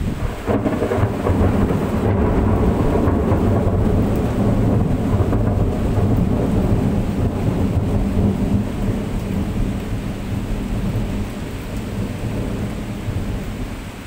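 A long roll of thunder that breaks in suddenly about half a second in and slowly dies away, over steady heavy rain.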